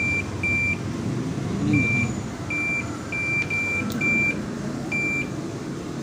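Washing machine control panel beeping as its delay-timer button is pressed repeatedly. There are about eight short, high beeps of the same pitch, irregularly spaced.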